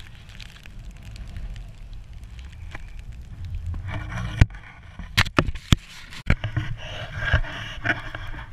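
Skis sliding and scraping through snow, with wind rumbling on the microphone. The scraping grows louder from about four seconds in, and several sharp knocks come close together in the middle.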